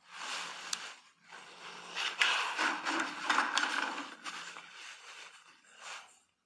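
Scraping and rubbing on the potter's wheel, with a few light clicks, loudest in the middle and dying away before the end.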